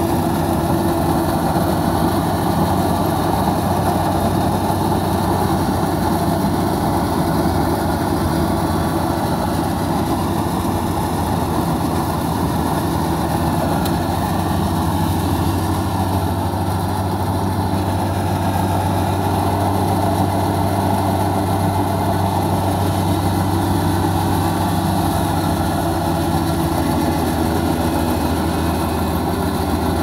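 A Kubota DC-35 rice combine harvester's diesel engine running steadily as the machine harvests rice, at a constant level with no change in speed.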